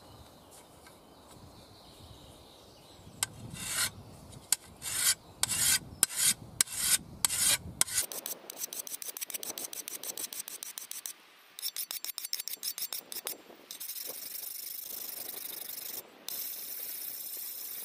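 Steel edge of a Cold Steel Special Forces shovel being sharpened with a double-sided DMT diamond stone, giving a gritty rasping scrape. It starts as separate strokes about one a second, turns to quick short strokes, and ends as a steadier continuous rasp. A rough working edge is being ground on rather than a fine one.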